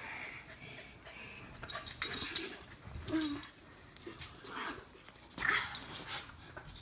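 Dogs play-fighting: short whimpering dog sounds and scuffling. The loudest scuffle, with sharp clattering noises, comes about two seconds in.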